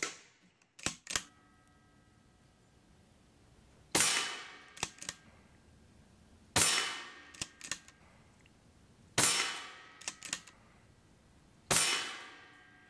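Daystate Delta Wolf .25 PCP air rifle firing four shots about two and a half seconds apart, each a sharp crack with a fading tail. A pair of quick clicks follows each shot.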